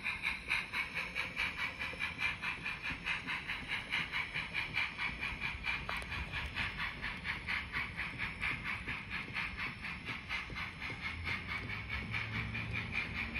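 Miniature steam locomotive sound from the DCC sound decoder of an N scale Bachmann USRA 4-8-2 Mountain: a steady, quick run of hissy chuffs that fades slowly as the engine draws away. A low rumble comes in near the end.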